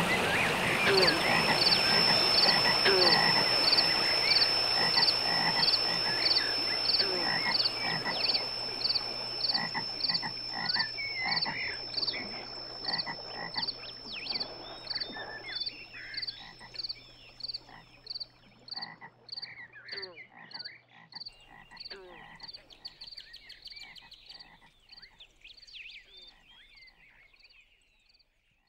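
Chorus of frogs calling, many short repeated croaks and peeps, with a thin steady high tone through the first two-thirds. It fades out slowly, dying away near the end.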